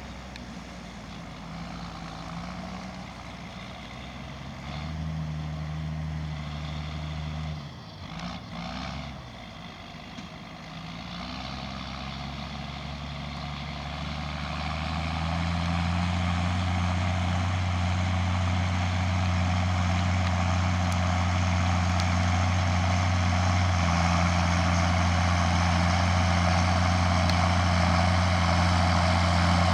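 A John Deere tractor's diesel engine running steadily under work. It grows much louder about halfway through and then holds a loud, even note.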